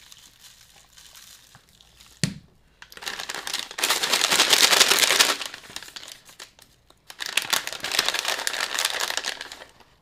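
A crinkly plastic snack bag of crunchy cheese snacks being shaken to mix in added salt, in two bursts of about two seconds each. A single knock comes a little over two seconds in.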